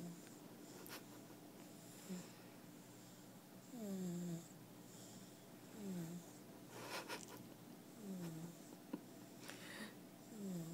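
A sleeping pet snoring, with a short falling squeaky whine on each breath about every two seconds. A couple of sharper snorts come between the breaths.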